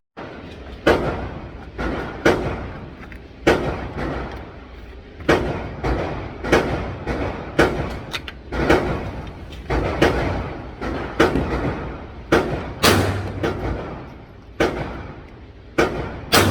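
9 mm pistol, a Tisas PX9 Gen 3, fired in slow, steady succession, about one shot every second or so, each shot echoing in the range.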